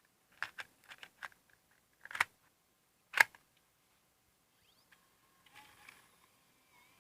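Plastic clicks and snaps from a MiniDV camcorder being handled: a few light clicks, then two sharper snaps about two and three seconds in, the second the loudest.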